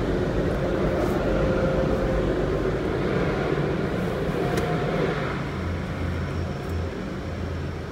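A car's engine and running noise heard from inside the cabin as it pulls slowly away, a steady noise that gradually fades, with a low engine hum standing out near the end.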